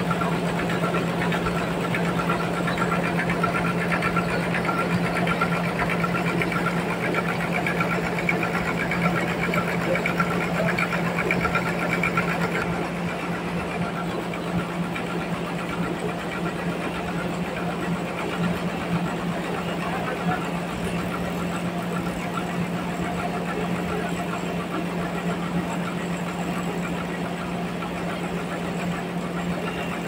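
Homemade bandsaw sawmill running with a steady drone and hum as a large log is pushed through the blade, stepping slightly quieter about twelve seconds in.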